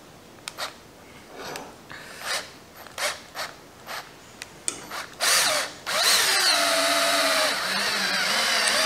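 Makita cordless drill with a 3/8-inch bit boring through a rubber stopper. It gives a string of short trigger bursts for about five seconds, then runs steadily for about three seconds as the bit cuts through.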